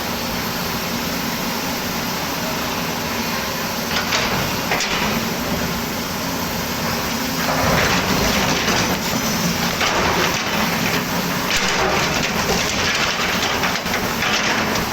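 Volvo excavator's diesel engine running steadily, with several surges of gritty, crunching noise as the bucket works through soil.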